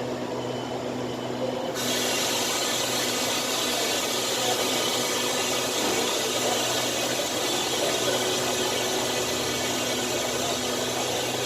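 Diesel train at a station, its engine running with a steady low hum. About two seconds in, a loud steady hiss starts suddenly and continues.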